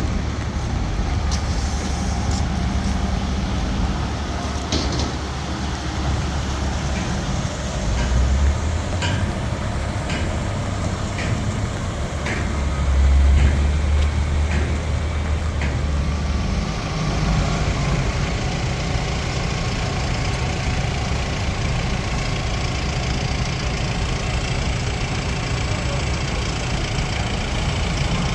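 Diesel engine of a Nippon Sharyo DH408-95M crawler pile driver running steadily, with a series of sharp metallic clicks about five to fifteen seconds in. The low engine rumble swells briefly around the middle.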